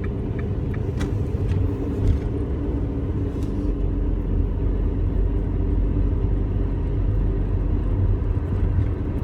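Car engine and road noise heard from inside the cabin while driving: a steady low rumble, with a few faint clicks in the first couple of seconds.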